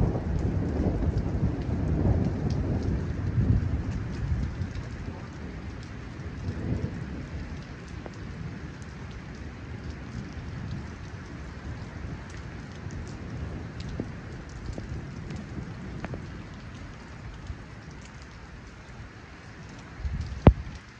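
Rolling thunder rumbling for the first few seconds and dying away, over steady rain with scattered drops ticking. A single sharp knock sounds near the end.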